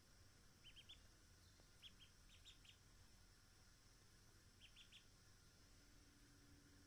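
A duckling peeping faintly in short high peeps, grouped in twos and threes, four times over.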